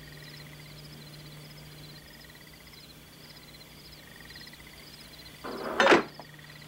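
Faint night-time cricket chirping, an even run of short chirps over a low steady hum. About five and a half seconds in comes a sudden, loud noise lasting about half a second.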